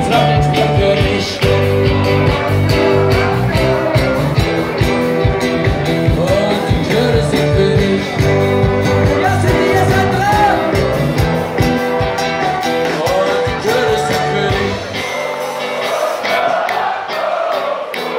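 Live band playing loud party rock music with a singer. About fifteen seconds in, the bass and drums drop out, leaving the singing and higher instruments.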